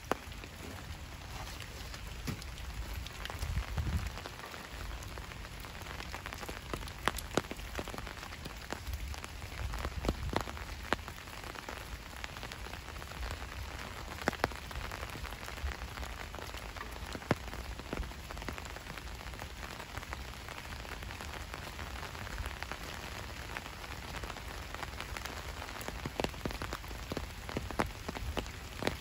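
Steady rain falling, with irregular sharp taps of single drops landing close by and a low rumble underneath.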